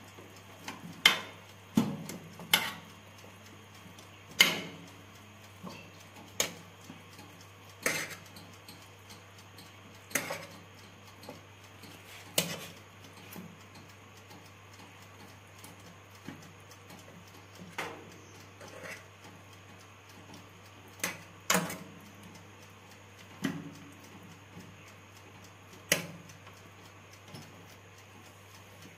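Kitchen tongs clinking and knocking against a baking tray as chicken drumsticks are turned, with sharp irregular clinks every second or two over a low steady hum.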